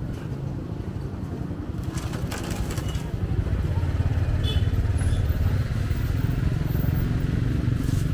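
A small engine running with a low, steady rumble that grows louder about three seconds in.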